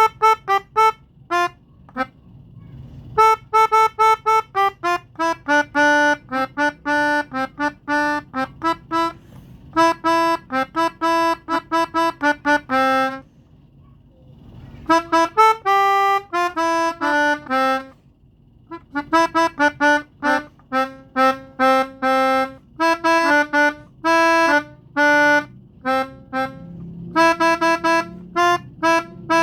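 Pianika (melodica) playing a tune in short, separate notes, with two brief pauses about halfway through.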